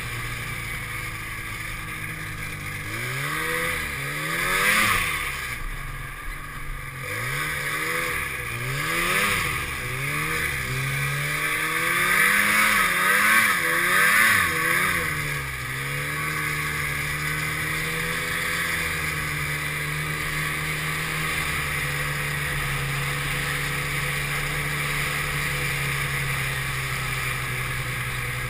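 Snowmobile engine revving up and easing off several times as the throttle is worked, then holding a steady speed for the second half, with a steady hiss over it.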